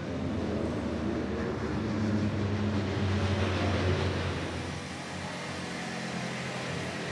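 A car engine running at low, steady revs with a deep hum, growing a little louder about two seconds in and easing off again after about four seconds.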